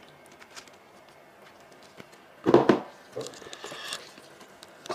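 Gloved hands tearing into a braised sheep head coated in chili oil: quiet at first, then two sharp rips close together about halfway through, followed by softer tearing and rustling.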